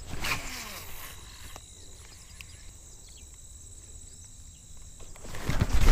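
A fishing cast with a baitcasting reel: a brief swish and the spool's short falling whir about a third of a second in, then quiet pond-side background with a faint steady high insect-like tone. Near the end, loud rustling and wind noise on the microphone.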